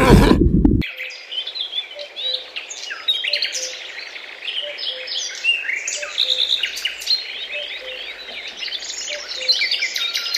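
Many small birds chirping together, a dense chorus of overlapping high calls. It starts under a second in, just as a loud low noise cuts off.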